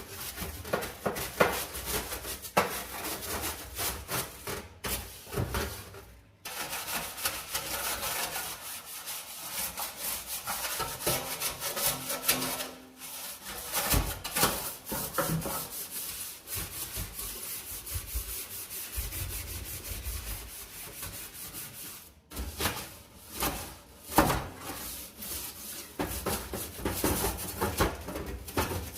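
A brush scrubbing a dirty stovetop or oven surface in quick back-and-forth strokes, with a few brief pauses.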